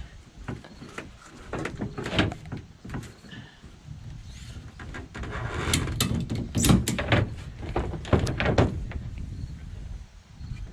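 A series of knocks, bangs and thumps from objects being handled, loudest in a cluster over the second half.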